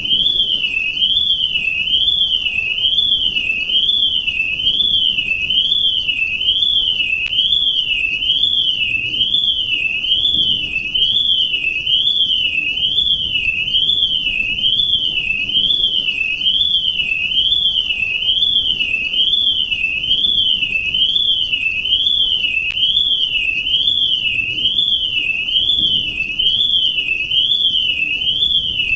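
Electronic alarm sounding without a break: a single high-pitched tone warbling steadily up and down, about one sweep a second.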